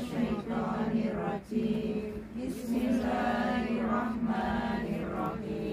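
A group of women chanting an Islamic prayer recitation together in unison, holding long drawn-out notes, with a brief pause about a second and a half in.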